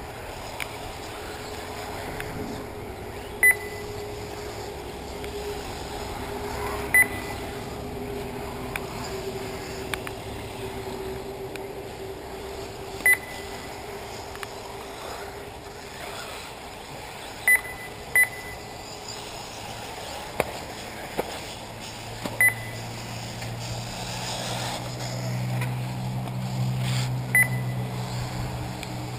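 Short single electronic beeps at one high pitch, about seven of them at irregular intervals, the beep of an RC race lap-timing system as buggies cross the timing line, over a steady outdoor background. A low hum comes in about two-thirds of the way through.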